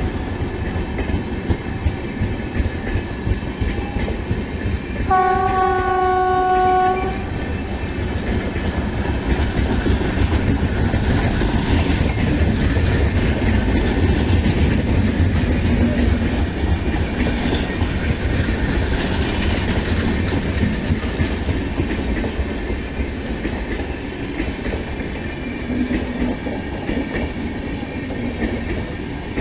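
Indian Railways passenger coaches rolling past with a steady rumble and wheel clatter. About five seconds in, a train horn sounds once, held for about two seconds.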